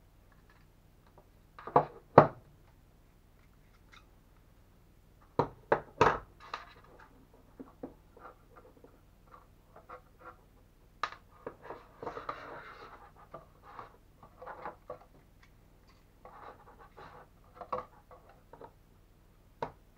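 Handling noise from an electronic speed controller, its thick power cables and a digital caliper being picked up and moved about: scattered sharp clicks and knocks, the loudest about two seconds in and again around six seconds in, with stretches of rubbing and rustling later on.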